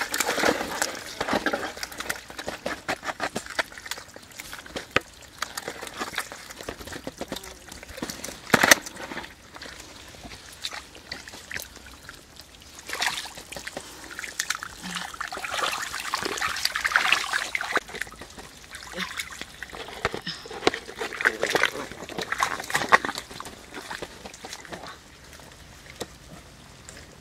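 Wet mud and muddy water being worked by hand in a perforated plastic basket over a bucket: sloshing, dribbling and splashing, with many small knocks and clicks.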